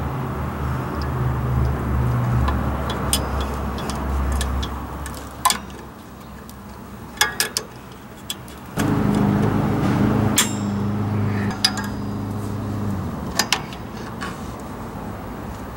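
A motor vehicle's engine running steadily. It drops away about five seconds in and comes back a few seconds later. Over it are scattered sharp metallic clicks and clinks of tools and drum-brake hardware being handled.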